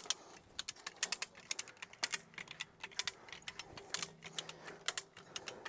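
Hand come-along being ratcheted to stretch field fence tight: sharp metallic clicks of the ratchet pawl in short irregular runs, several a second.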